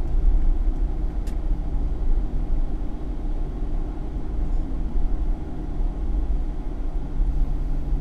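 Steady road and engine rumble inside a car cruising at highway speed, with tyre noise on the road and the engine running under light load.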